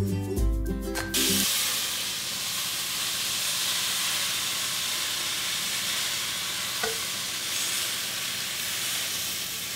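Background music for about the first second and a half, then a steady sizzle from a hot frying pan on an electric stovetop.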